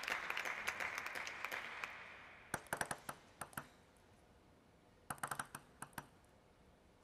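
Applause dying away over the first two seconds or so, then two short runs of quick, sharp clicks of a table tennis ball bouncing, about two and a half and five seconds in.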